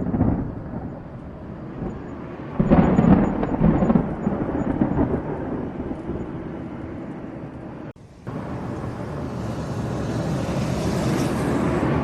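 Thunder rumbling, with a loud clap about two and a half seconds in that rolls and fades over several seconds. About eight seconds in it cuts off abruptly and gives way to a steady rushing hiss of storm noise.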